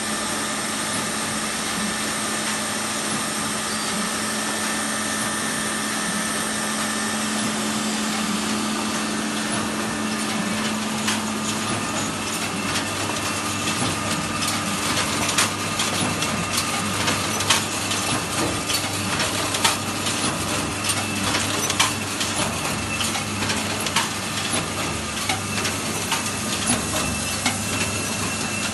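Horizon VAC 100 paper collator line with its SPF-20A stitch-fold unit running: a steady mechanical hum, with irregular sharp clicks and knocks from about halfway through.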